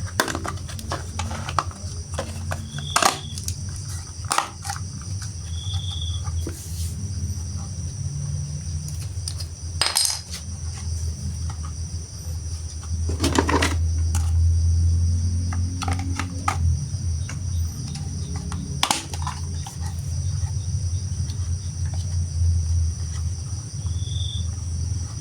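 Scattered clicks and clattering knocks of small hard toy parts being handled and fitted together, over a steady low hum, with a few short high beeps.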